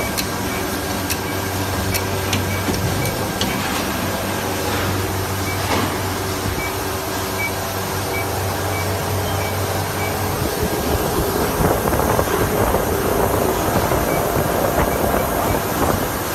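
Injection moulding machine and its take-out robot running: a steady low hum with a few sharp clicks and a row of short high beeps. It grows louder and rougher from about ten seconds in.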